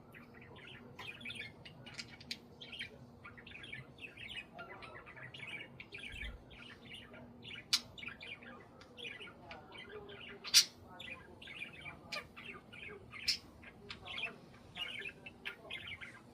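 Budgerigars chattering and warbling nonstop in quick short calls, with three sharp, louder clicks standing out in the second half.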